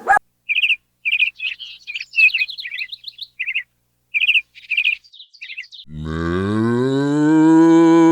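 A small bird chirping in a quick run of short, high calls, then about six seconds in a cow starts one long, low moo that rises and then falls in pitch.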